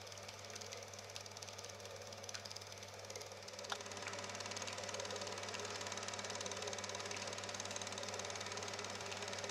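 Bauer T10 S Normal 8 film projector running: a steady motor hum under the fast, even chatter of the film transport. A single click comes nearly four seconds in, after which it runs a little louder.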